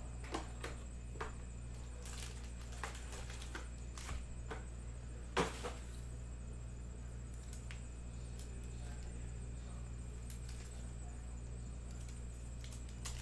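Quiet handling of trading-card packs and a card box: soft rustles and small clicks as stickers are peeled off a roll and pressed onto foil packs, with one louder crinkle about five seconds in. A steady low hum runs underneath.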